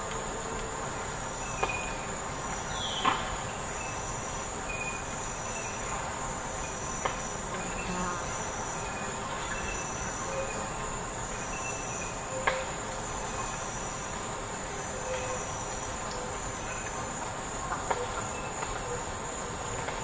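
Forest ambience: a steady high chirring of insects, with a short call repeating about every second and a half and a few sharp clicks. The loudest clicks come about three seconds in and again near the middle.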